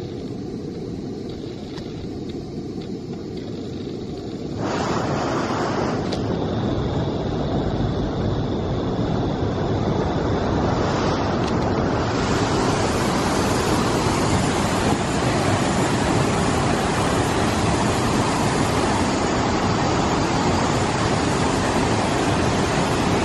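River water rushing over and between boulders, a steady loud noise. It grows louder and brighter about five seconds in and again about twelve seconds in.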